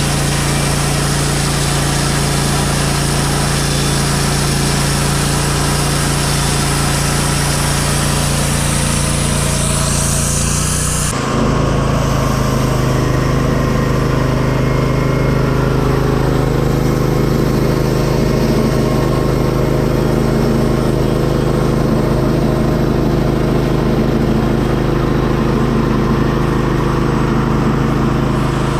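Sawmill engine running steadily while a pine log is sawn. About eleven seconds in the sound changes abruptly: the hiss on top drops away and the engine's hum shifts a little.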